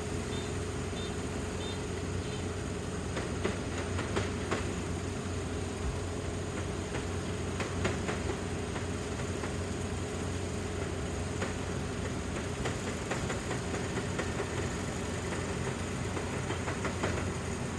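Dynamax 470 rice combine harvester running steadily under load: an even engine hum with machinery noise and scattered short clicks and rattles.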